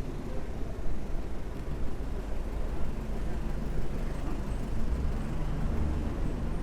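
Heavy city street traffic: a steady low rumble of vehicle engines and tyres, with a deeper engine rumble building about five seconds in as a heavier vehicle draws near.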